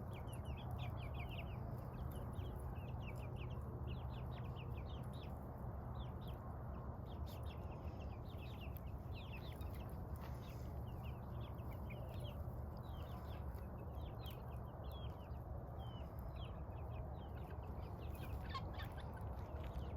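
A free-ranging flock of chickens and turkeys calling: many short clucks and chirps throughout, over a steady low rumble.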